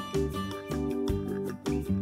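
Instrumental background music with a steady rhythm of plucked-string notes.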